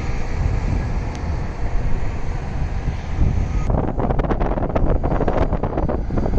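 Heavy diesel engine rumbling as a loaded dump truck pulls away. A little over halfway through it cuts to a Hitachi Zaxis 670H excavator's bucket scraping and crunching into broken rock, a dense clatter of stone over the excavator's diesel engine.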